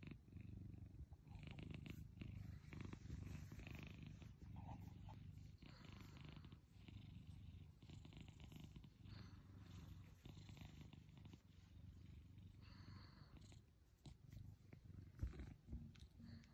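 A cat purring steadily while being stroked, with soft rustles of the hand brushing its fur. A brief bump about fifteen seconds in is the loudest moment.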